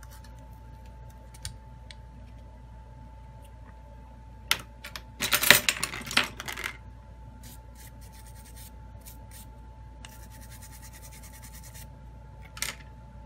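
Clicks and crackling scratches as a Samsung Galaxy A21s LCD panel is pried and peeled off the adhesive in its frame. The loudest is a burst of crackling about five seconds in, with a softer scratching later and one more crackle near the end, over a faint steady high whine.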